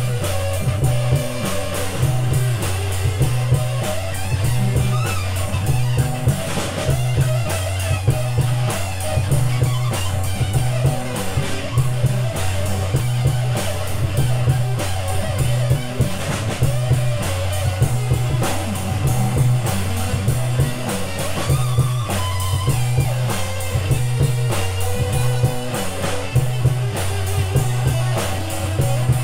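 Instrumental rock jam: electric guitar over a drum kit, with a low figure repeating steadily underneath about once a second.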